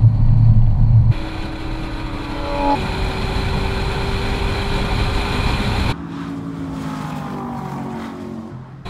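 Chevrolet Corvette C7 Grand Sport's V8 running at speed on a racetrack, heard in a string of short clips with abrupt changes. It starts with a loud low engine note, then steadier higher engine tones. Near the end it turns quieter, with the pitch falling as a car goes by the trackside microphone.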